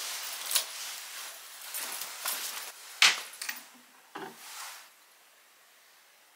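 Fabric rustling as a fleece-lined field jacket is pulled on, then a sharp click about three seconds in, the loudest sound, followed by a couple of lighter knocks as a small perfume bottle is picked up off a shelf.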